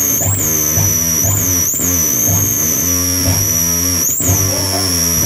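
Live experimental noise music with distorted, effects-laden tones: a piercing high whistling tone that swoops up and down, then mostly holds, over a chopped, pulsing bass tone and bending, gritty tones in the middle.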